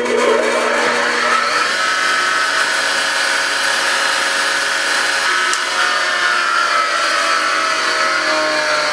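Motor-driven wire wheel on a grinder scrubbing grime off a drill press part: a steady whine under a harsh, even hiss of the wire bristles. It starts suddenly.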